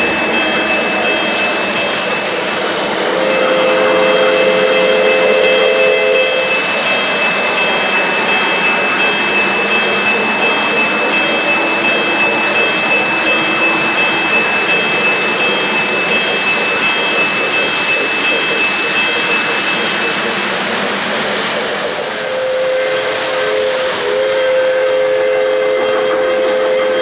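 O-gauge model freight trains running on three-rail track, the rolling of the cars making a steady rumble. The steam locomotive's electronic whistle sounds a held chord twice, about three seconds in and again near the end. A steady high whine runs under it and stops about twenty seconds in.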